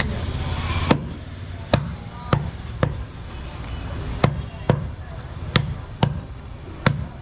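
Butcher's cleaver chopping goat meat on a wooden stump block: about nine sharp strikes at uneven intervals, a knock with each blow into the wood.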